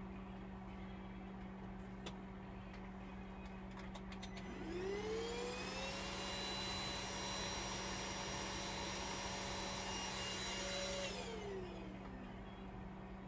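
A small electric motor spins up with a rising whine, runs at a steady pitch for about five seconds, then winds down and stops. It follows a few light clicks.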